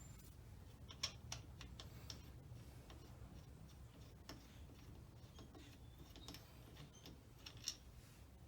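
Scattered faint clicks and light metal taps from tools and parts being handled, over a low steady room hum; the sharpest click comes about a second in and another near the end.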